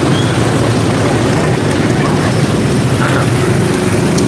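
Steady low drone of a large engine running close by, with no change in pitch.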